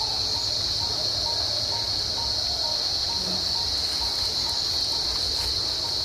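Steady high-pitched drone of insects (cicadas or crickets) that does not change. Behind it, a faint short note repeats about twice a second.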